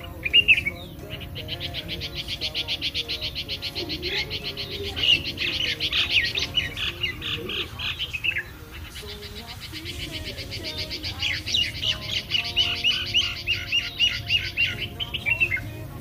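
Songbirds singing: a fast, even trill of rapidly repeated notes with slurred whistled phrases over it, breaking off briefly about eight and a half seconds in and resuming.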